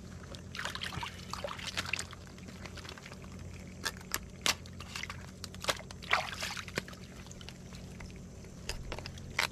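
Hands splashing and sloshing in shallow tide-pool water while washing live mud crabs, in irregular bursts, with scattered sharp clicks and knocks of the crabs' shells.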